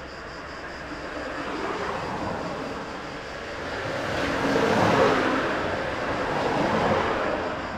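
Road traffic passing by: the noise of vehicles swells to a peak about five seconds in, rises again near seven seconds, and then fades.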